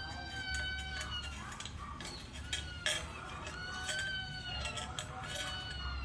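Pet parrot calling, several drawn-out, level whistled notes of about a second each, with scattered clicks and one sharp click a little before halfway.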